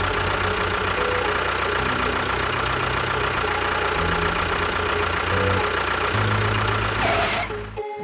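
Small engine running, its pitch stepping up and down, cutting out briefly just before the end.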